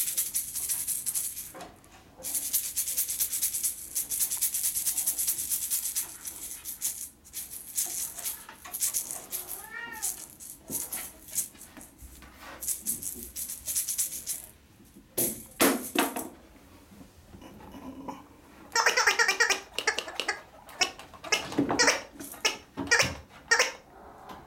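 Norwegian Forest Cat kittens meowing: a few high calls at first, then a run of repeated meows in the second half. Under the calls is a dry, hissy rustling and rattling that is loudest in the first few seconds.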